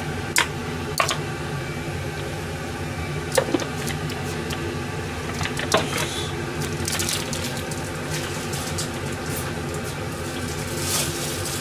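Granulated dashi shaken from a plastic bag into a frying pan of cut root vegetables: a few sharp taps and crinkles over a steady mechanical hum.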